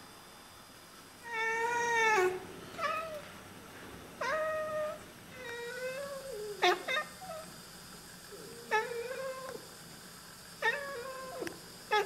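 Oriental Siamese cat meowing and chirping in a string of about nine short calls, the first the longest and loudest, some bending up or down in pitch: the excited talking a cat does while watching birds through a window.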